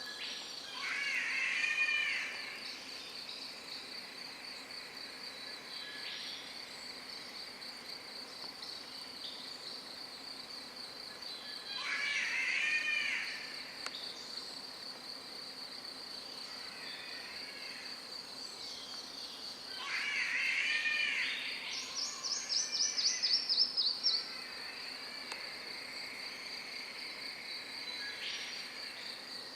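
Strange repeated calls from an unidentified rainforest animal, thought to be a bird: three calls, about 1.5 s each and spaced roughly eight to ten seconds apart, over a steady high drone of insects. Between about 22 and 24 seconds in there is a quick run of short falling notes.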